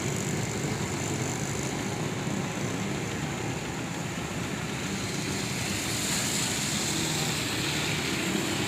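Steady rushing noise of vehicle traffic on a rain-soaked street, swelling slightly about six seconds in.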